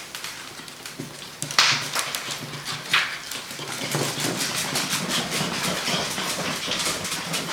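Six-week-old puppies' paws and claws pattering rapidly on the floor as they run, a quick run of light clicks that grows denser in the second half, with a couple of louder scuffs about one and a half and three seconds in.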